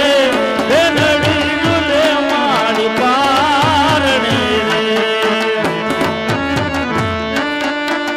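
Live devotional folk music with an ornamented, wavering sung melody over steady held tones and a fast, even beat on hand drums. About four seconds in the melody line drops out, leaving the drums and the held tones playing.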